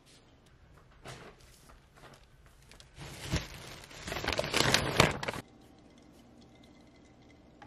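Plastic shopping bags rustling and crinkling, a loud dense crackle for about two and a half seconds that cuts off suddenly.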